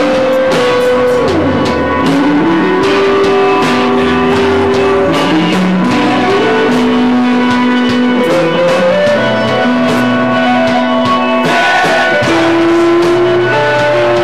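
Live rock band playing loud: an electric guitar holds long sustained notes, bending down and back up in pitch a second or two in, over drums and cymbals.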